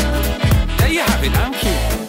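Background music: a song with a heavy bass line and a steady drum beat, and a pitched melody that bends up and down through the middle.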